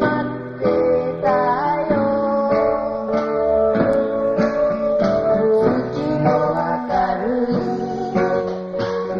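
Band music led by a strummed acoustic guitar, with held melody notes that change every second or so.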